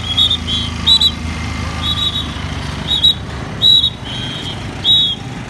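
Traffic police whistle blown in a string of short, shrill blasts, some in quick pairs, over the steady low running of motorcycle and vehicle engines on the road.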